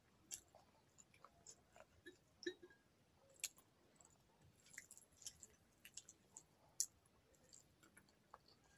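Faint close-up chewing with wet mouth clicks and smacks from someone eating rice and fried fish by hand: a scattered run of short soft clicks, the sharpest about three and a half and nearly seven seconds in.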